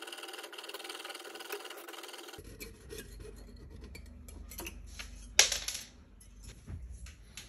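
Fine saw blade cutting through a diecast metal toy-car body with a steady rasping noise that stops about two and a half seconds in. Small handling clicks follow, with one sharp knock a little past the five-second mark.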